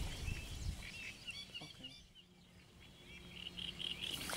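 Small birds chirping outdoors, short repeated calls that fade out around the middle and return near the end. A brief low rumble sounds at the very start.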